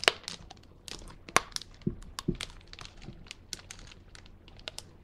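Hard freeze-dried Starburst Minis being crunched between the teeth: a quick, irregular run of sharp cracks with a couple of duller knocks about two seconds in. The candy is very hard.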